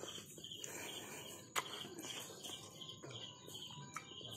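Faint insect chirping, a steady pulse of about four chirps a second. A sharp click about a second and a half in, and a smaller one near the end.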